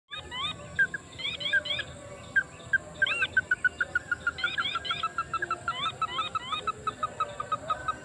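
Ruddy-breasted crakes calling: sets of two or three rising whistled notes, joined from about three seconds in by a fast, even run of short notes, about six a second, that falls slightly in pitch.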